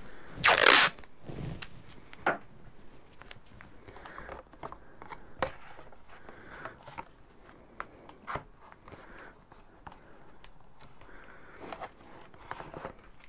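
Masking tape torn off the roll, a loud tearing about half a second in. Then cardboard is handled and pressed into place, with scattered crinkles and light taps.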